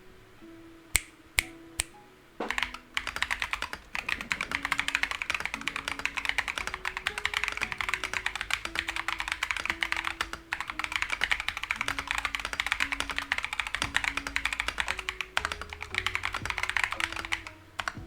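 Mechanical keyboard with Akko Lavender Purple tactile switches in a foam- and tape-modded Redragon K617 board: three single key presses, then fast continuous typing with a brief pause near the middle.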